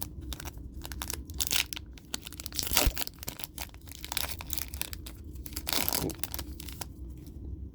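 Foil booster pack wrapper crinkling and tearing, with trading cards being handled and flicked in quick clicks; two longer rasping tears come about three and six seconds in.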